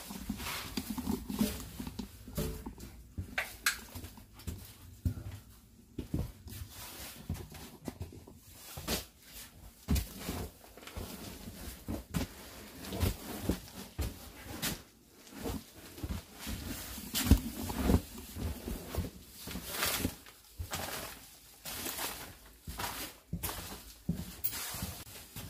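Footsteps and scuffs on a debris-strewn floor inside a railway passenger car, an uneven run of knocks and bumps, some sharper and louder than others.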